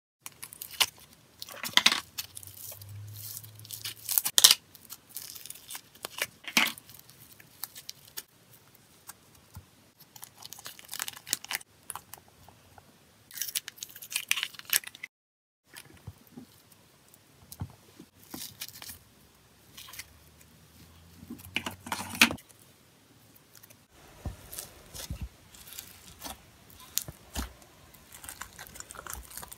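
Slime being peeled out of plastic tubs and dropped into a stainless steel bowl: sticky crackles, pops and plastic clicks in short irregular clusters. In the last few seconds, fingers squish the piled slimes, some of them beaded, in a denser crackle.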